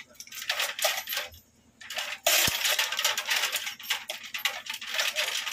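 Chain hoist being worked, its steel chains rattling and clinking in quick succession. The clinking breaks off briefly about a second and a half in, then returns louder after a dull knock.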